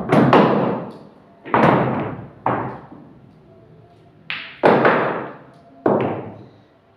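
About six heavy thuds from a pool table, each ringing out for most of a second: bare feet landing on the table bed as the cue ball is kicked, with balls knocking together and dropping into a pocket.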